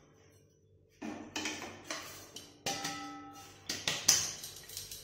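A stainless-steel vessel knocks against the rim of a frying pan, about six times, as ground moong dal is shaken out of it into hot ghee. Each knock rings briefly with a metallic tone. The knocks start about a second in.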